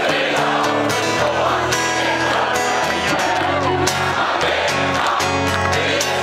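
Live pop-rock band playing: strummed guitars over bass and drums, with steady cymbal and snare hits, heard from within the audience.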